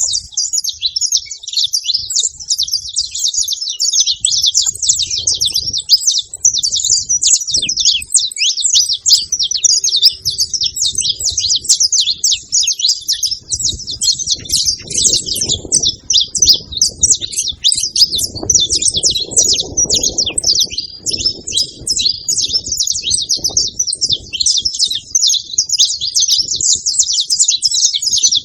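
Saffron finches, a male and a female, chirping in a dense, rapid, unbroken stream of high notes. A faint low rumble sits under the birdsong, stronger in the second half.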